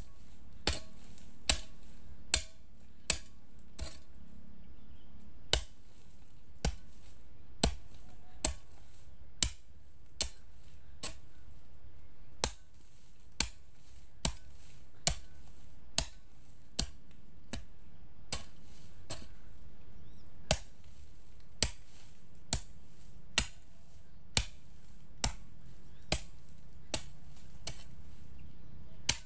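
A hoe chopping into the soil over and over, one sharp knock about every second, as planting holes for corn are dug.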